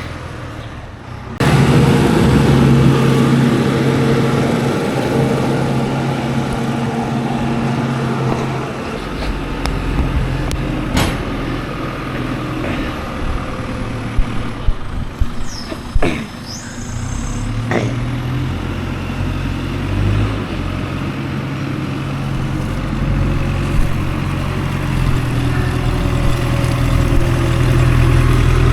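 Forklift engine running steadily, coming in suddenly just over a second in, with a few sharp knocks and a brief high squeak about halfway through.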